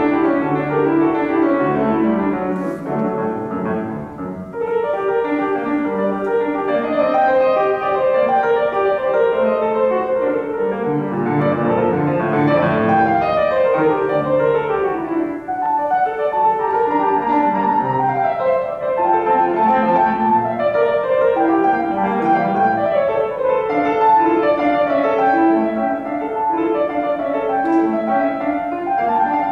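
Yamaha grand piano played solo: a classical piece in fast runs of notes, with a brief lull about four seconds in.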